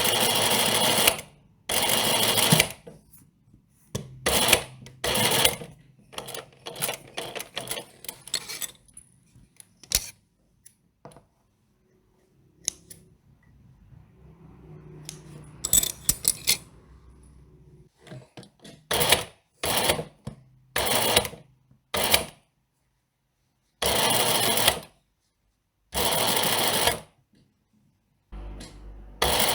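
Sewing machine stitching in repeated bursts of about a second each, stopping and starting, with scattered clicks between runs. A quieter stretch near the middle carries only a faint low hum.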